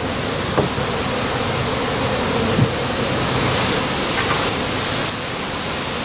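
Steady rushing hiss, with honey bees buzzing around an open hive beneath it and a couple of faint knocks.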